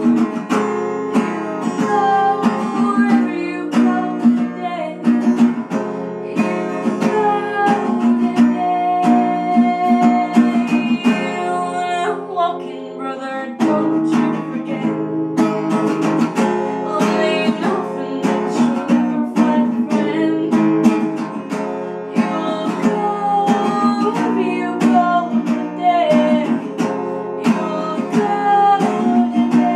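Acoustic guitar strummed in a steady rhythm while a woman sings along.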